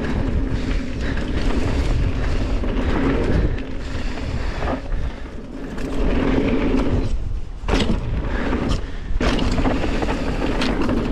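Mountain bike riding down a dirt trail: wind buffeting the microphone and tyres rumbling over the dirt, with scattered sharp knocks from bumps and a couple of brief lulls.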